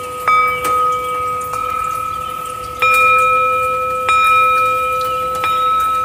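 Bell-like chime tones, struck about six times at uneven intervals of roughly one to one and a half seconds, each one ringing on so that the tones overlap in a steady shimmer.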